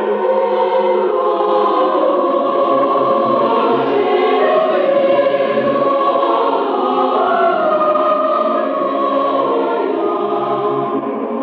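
A mixed choir singing unaccompanied in sustained, slowly moving chords, with men's low voices beneath the upper parts.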